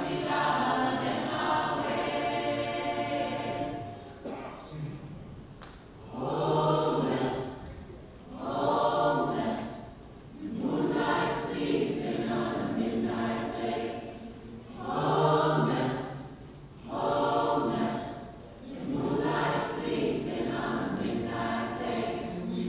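Mixed choir of men and women singing a cappella, in sung phrases of a few seconds separated by brief pauses.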